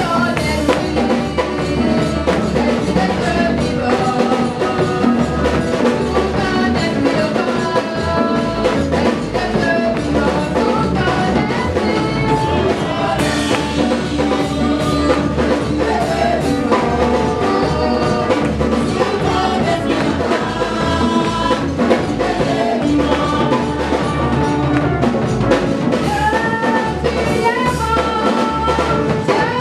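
Live gospel praise music: singers on microphones over a drum kit keeping a steady beat, amplified through a PA.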